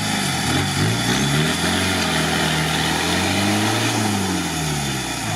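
Lifted UAZ off-roader's engine revving hard, its revs swinging up and down and highest about four seconds in, as its big mud tyres spin and churn in a deep mud pit.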